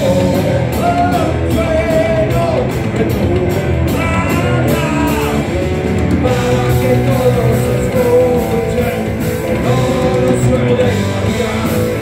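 Heavy metal band playing live: distorted electric guitars, bass and drums with a steady beat, under a sung melody line.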